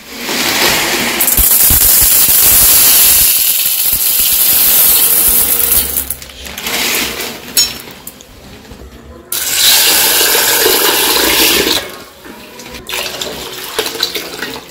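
Dry sabudana (tapioca pearls) pouring into a steel bowl, a loud hiss lasting several seconds. Then, about halfway through, water is poured into the bowl over the pearls, splashing loudly for a few seconds and then more quietly.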